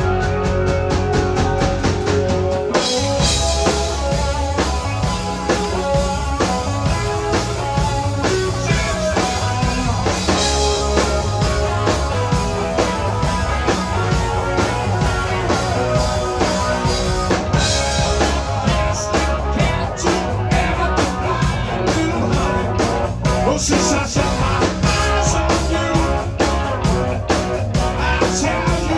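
Live rock band playing amplified through a club PA: a held electric guitar chord, then drums and bass come in about three seconds in and the full band plays on.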